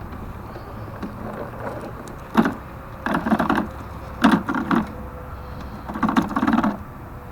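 Gas-powered yard vacuum running along a sidewalk with a steady low hum. Four louder bursts of noise come over it, about two, three, four and six seconds in.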